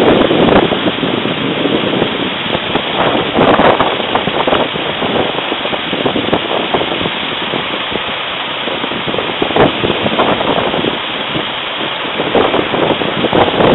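Steady road traffic noise at a busy city junction, engines and tyres heard as a rushing haze that swells and dips, with a diesel lorry idling alongside.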